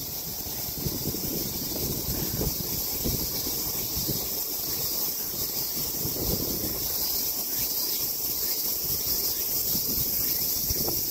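Steady, unbroken drone of cicadas in summer trees, with wind rumbling on the microphone underneath.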